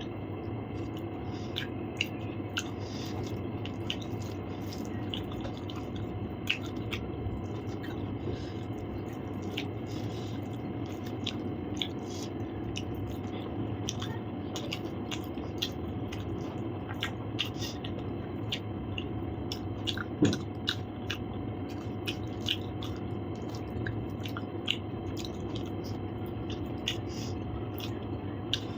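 Close-up eating sounds: chewing with many small wet mouth clicks, over a steady background hum. One louder knock about twenty seconds in.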